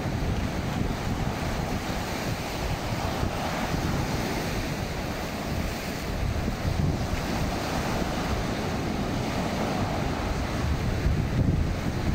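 Ocean surf breaking and washing up a sandy beach, a steady rushing wash, with wind buffeting the microphone in low gusts.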